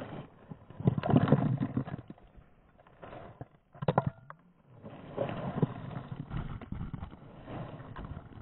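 Camera handling noise: a hand and cloth rubbing and knocking on the camera right at its microphone, in uneven scuffing bursts with a cluster of sharp clicks about four seconds in.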